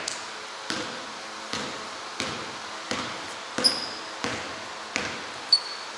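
Basketball being dribbled on a hardwood gym floor, about eight bounces at an even pace of roughly one and a half per second, each echoing in the hall. Two short, high sneaker squeaks on the wood floor, the sharper one near the end.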